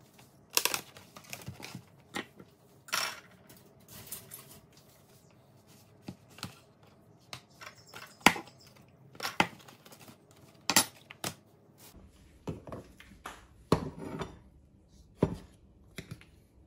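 Kitchen handling sounds: a plastic tray of beef mince and a metal spoon knocking and scraping on a wooden cutting board, with scattered clicks, taps and crinkles of plastic packaging. A faint steady hum starts about twelve seconds in.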